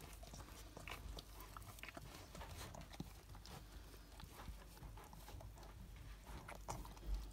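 Faint, irregular wet clicks and smacking from a cockapoo mother licking and tending her newborn puppy.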